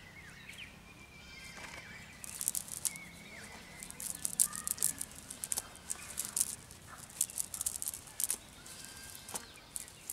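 Crisp rustling and crackling of a nylon cast net and wet pond weed being pulled apart by hand as the catch is picked out, coming in short flurries.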